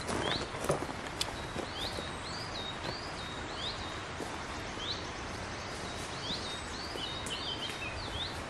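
Footsteps on dry leaf litter in the first second or so as a walker moves off, over a steady outdoor hiss. A bird repeats a short, high, curving call many times at irregular intervals.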